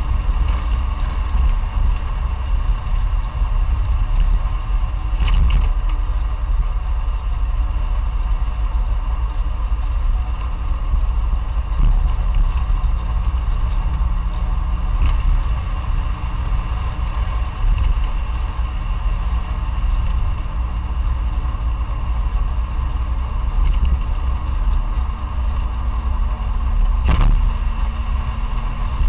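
Classic Fiat 500's air-cooled two-cylinder engine running steadily on the road, with a dense low rumble. A few brief knocks come through, one about five seconds in and one near the end.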